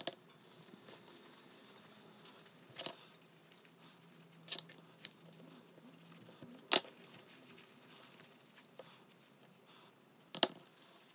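Hands working on small bicycle pedal parts and tools on a tabletop: faint rubbing and scraping, with about six short sharp clicks and taps, the loudest a little past the middle.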